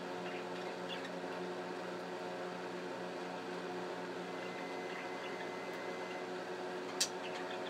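A steady electrical hum with faint, scattered budgerigar chirps over it, and one sharp click about seven seconds in.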